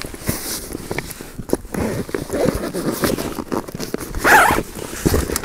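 A zipper on a nylon snowshoe bag being opened, with the bag's fabric rustling and small knocks and scrapes as MSR Lightning Ascent snowshoes are pulled out. A louder rasp comes about four seconds in.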